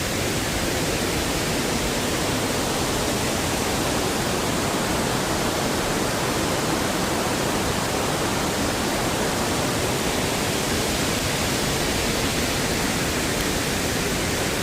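Large waterfall in full flood after heavy rain, a steady, even roar of falling water.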